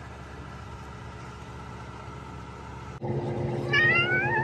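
A domestic cat gives one rising meow near the end, the loudest sound here, over a steady low hum from the sailboat's motor. The hum jumps louder abruptly about three seconds in.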